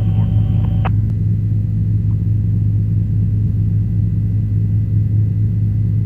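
Helicopter in flight, a steady low drone throughout, with the tail of a clipped radio transmission in the first second.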